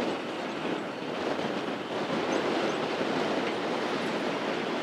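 Case IH 535 Quadtrac tractor working under load, pulling a Great Plains 4000TC turbo chopper vertical-tillage tool through dry, dusty ground: a steady mechanical rumble of engine, tracks and implement.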